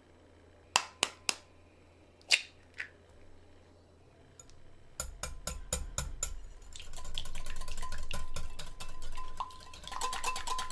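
A few sharp taps on a mixing bowl, then a whisk clicking rapidly against the bowl's sides, about five strokes a second, as batter is mixed.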